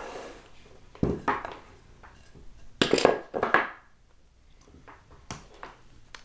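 Handling noise of hands moving a corded drill over wooden boards: two short bursts of knocking and rubbing, about a second in and around three seconds in, then a couple of light clicks near the end.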